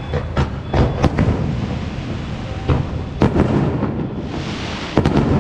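Aerial fireworks going off: a string of sharp bangs, several in the first second and more about three and five seconds in, with a dense hissing crackle of bursting stars starting about four seconds in.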